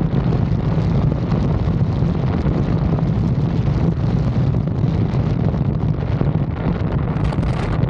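Strong wind buffeting the microphone of a vehicle-mounted 360 camera, over a steady low rumble. A brief, higher hiss comes near the end.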